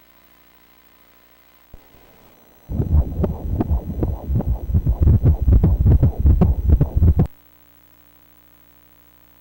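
A 27-week fetus's heartbeat played through the ultrasound machine's Doppler speaker, a fast pulsing whoosh. It starts about three seconds in and cuts off suddenly some four seconds later.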